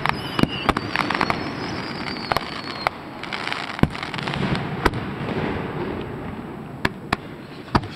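Aerial firework shells bursting: a quick run of sharp bangs in the first second, then single bangs scattered through the rest. A faint high whistle falls slowly in pitch over the first three seconds.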